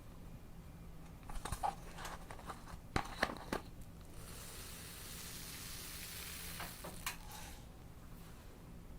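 Purple slime being handled: sticky clicks and crackles, then a longer hissing crackle a few seconds in, as the slime is stretched or pressed.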